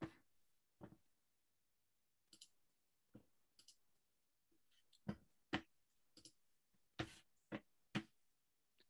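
Near silence broken by about a dozen short, irregular clicks and knocks.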